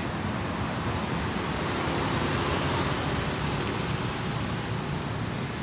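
Steady noise of road traffic, with wind on the microphone.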